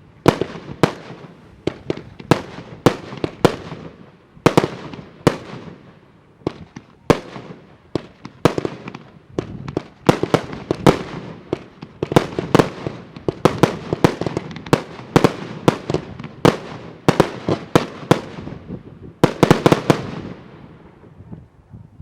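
Jorge JW45 Show of Fireworks battery firing: a steady run of sharp bangs, two or three a second. Near the end comes a quick rapid-fire cluster of bangs, and then the sound dies away.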